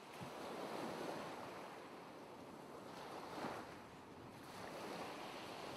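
Soft ocean waves washing in, swelling and easing in slow surges, with stronger swells about a second in and about three and a half seconds in.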